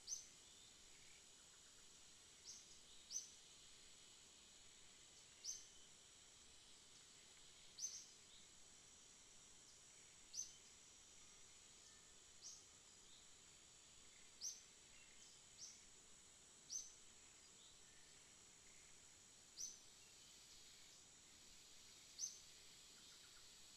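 Faint outdoor ambience: a steady high insect drone with short, high chirps repeating every two to three seconds.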